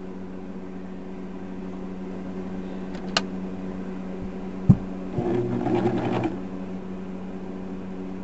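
Old electric sewing machine humming steadily under a barely pressed foot pedal. There is a click about three seconds in and a sharp knock just before the middle, then a louder stretch of about a second as the machine runs and stitches faster.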